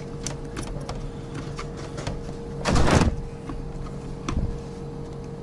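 Light clicks and knocks of a deep fryer's stainless-steel control housing being handled and fitted back together by hand, with one louder scrape lasting about half a second near the middle.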